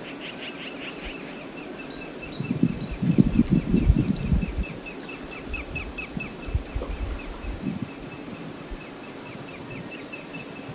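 Outdoor riverside ambience with a bird giving a fast, steady series of high chirps, about four a second, and a few other higher bird calls. About two and a half seconds in, a louder low rough noise lasts about two seconds.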